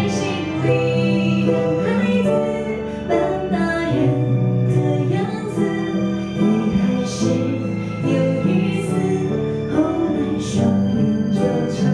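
Live band performing a song: a woman singing over electronic keyboard and guitar, with sustained bass notes that change every couple of seconds.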